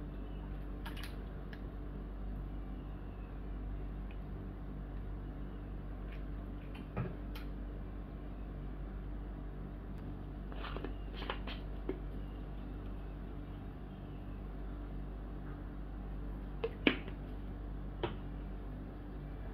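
Light clicks and taps from kitchen utensils and containers being handled around a glass mug, a handful of them scattered through, the sharpest about seventeen seconds in, over a steady low hum.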